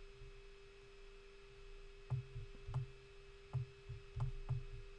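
Soft clicks and knocks of a computer mouse being clicked and moved on a desk, about six of them at irregular spacing from two seconds in, over a steady electrical hum.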